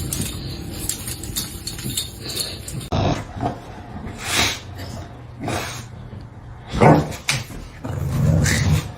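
A dog making a series of short sounds, several about a second apart, starting about three seconds in.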